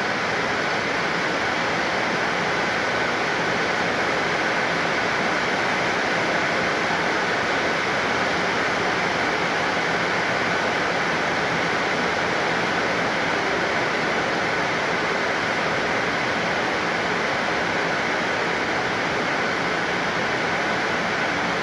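Steady, even rushing hiss at a constant level, with a faint steady whine running through it.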